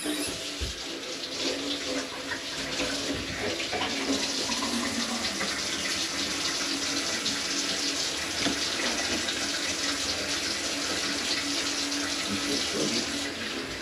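Water running steadily from a kitchen faucet into the sink, an even splashing hiss with no break.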